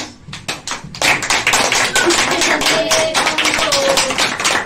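People clapping their hands: a few scattered claps at first, then steady applause from about a second in.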